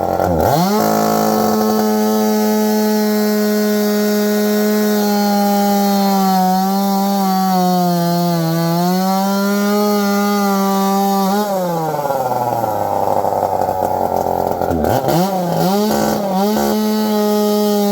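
Two-stroke chainsaw running at high revs, its pitch sagging a little under load as it cuts through an aluminum wheel rim. About two-thirds of the way in the throttle is released and the engine note drops. The saw is then blipped a few times and goes back to full revs near the end.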